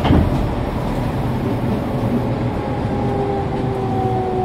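Fukuoka City Subway 2000 series train running through the tunnel, heard from inside the car: a steady rumble of wheels on rails, with a single thump just after the start. From about three seconds in, a pair of motor tones slowly falls in pitch as the train begins to slow for the next station.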